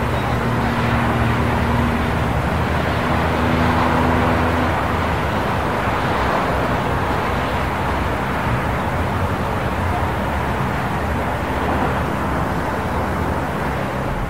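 Dense city traffic noise: a steady din of cars and road noise. A low hum comes and goes twice in the first few seconds.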